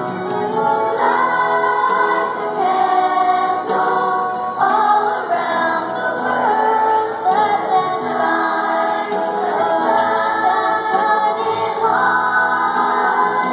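Children's choir singing together, holding notes and moving through sung phrases.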